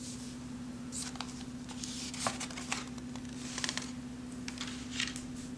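Sheets of paper being handled and swapped on a table, making scattered soft rustles and light clicks over a steady low hum.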